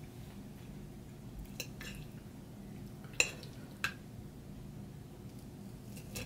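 Metal fork clinking and scraping on a plate while picking up bites of fried egg: a handful of short sharp clinks, the loudest about three seconds in.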